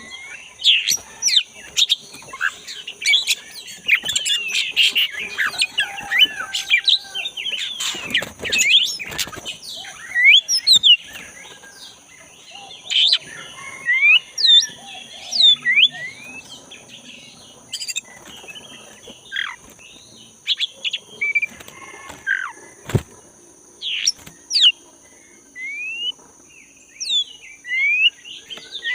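Black-breasted oriental magpie-robin (kacer) in full song: a busy, varied run of quick whistles, chirps and sweeping notes, densest over the first several seconds, then sparser with short upward-slurred whistles. A steady high hiss sits underneath.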